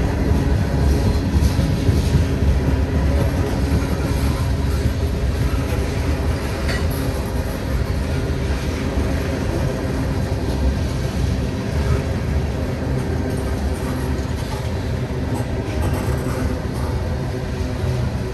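Mixed freight train rolling past at track side, a steady low rumble of wheels on rails that eases slightly in the second half.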